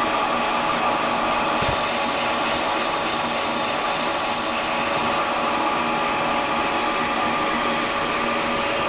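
A motor-driven machine running steadily with a constant hum, joined by a brighter hiss for about three seconds shortly after the start.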